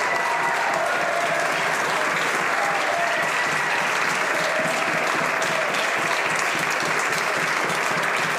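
Members of Parliament applauding steadily at the end of a speech, with faint voices calling out over the clapping.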